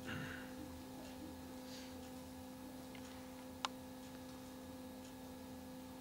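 Quiet room with a low, steady electrical hum, and one sharp click about three and a half seconds in.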